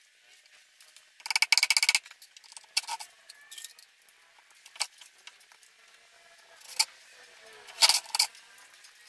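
Cordless drill-driver running briefly in a rapid rattling burst about a second in, driving a screw into the cabinet's plywood panel, followed by a few separate sharp metal clicks and taps as small hardware and the drill are handled.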